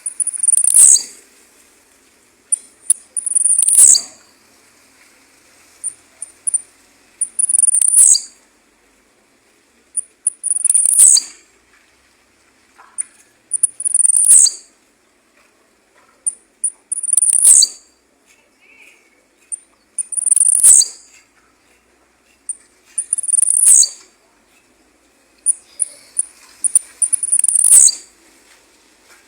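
Male blue-black grassquit (tiziu) singing its short song over and over, nine times, about once every three seconds. Each phrase is a few quick, very high notes followed by one loud, sharp downward sweep.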